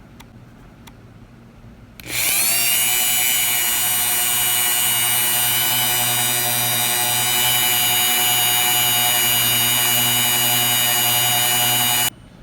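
Low-speed electric drill spinning up about two seconds in, then running with a steady whine for about ten seconds, and stopping abruptly. It is turning a homemade extractor tool, ground from a drill bit, in a broken stud inside a small engine.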